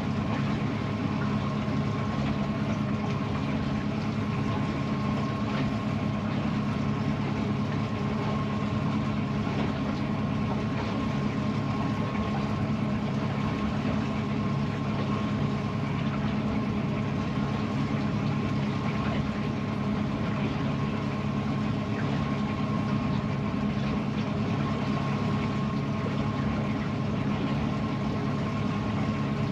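An engine running steadily at an even speed, with a low hum and a thin steady whine above it.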